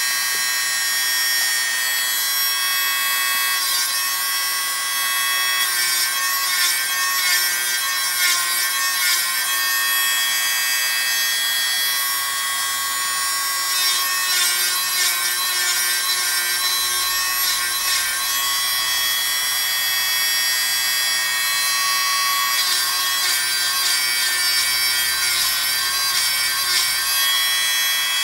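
Electric podiatry nail drill running with a steady high whine, its burr grinding the edges of freshly cut toenails smooth. The sound turns grittier in two stretches, about five seconds in and again in the last few seconds, as the burr works against the nail.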